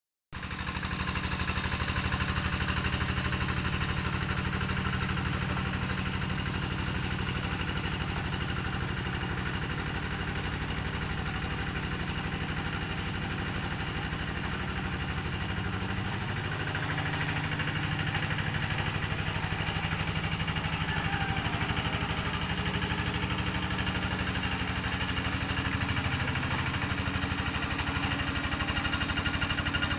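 Rice-paddy plowing tractor's engine running steadily, with a thin high whine throughout.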